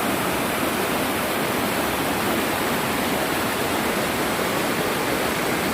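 Steady rush of a mountain valley stream, its water tumbling continuously with no let-up.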